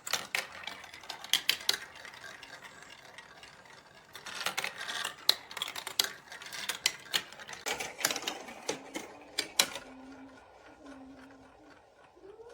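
Marbles and plastic eggs rolling and clattering down a plastic building-block marble run, with many irregular sharp clicks and a light rattle throughout.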